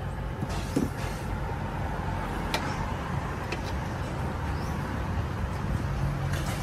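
Steady low engine rumble of road traffic, growing louder near the end, with a few light clinks of a metal spoon against jars.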